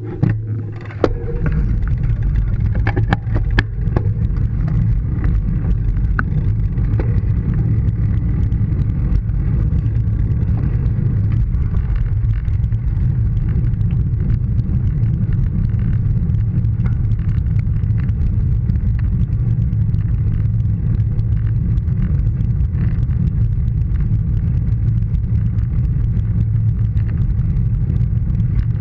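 Wind buffeting the microphone of a bicycle-mounted GoPro as the bike rolls along a road: a steady low rumble. A few clicks and knocks come in the first few seconds.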